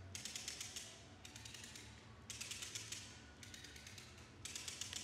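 Silk strength-test rig under load, giving bursts of rapid clicking about once a second.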